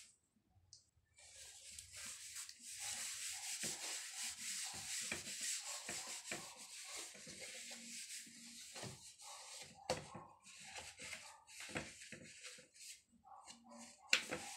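A white wipe rubbed back and forth over the black top of a folding laptop table, cleaning it: a scratchy hiss in repeated strokes, with a couple of sharp knocks around the middle and near the end.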